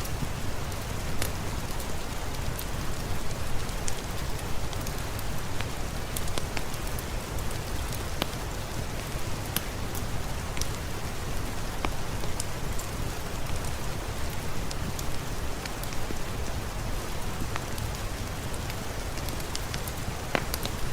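Steady rainfall with a deep low rumble, dotted throughout with sharp, irregular crackles and pops from a wood fire.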